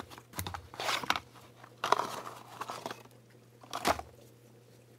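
Small cardboard box and its packaging being handled and pulled open, giving a handful of short crinkling and crunching sounds, the loudest about two seconds in.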